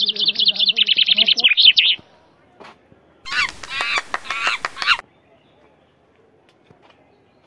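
Birds calling: a fast, loud chattering trill of high notes for about two seconds, then after a pause a shorter burst of sweeping squawk-like calls.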